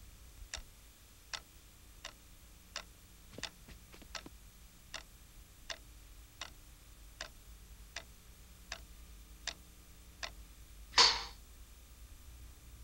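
A clock ticking slowly and evenly, about four ticks every three seconds, stopping after about ten seconds. About eleven seconds in comes one short, louder burst of noise.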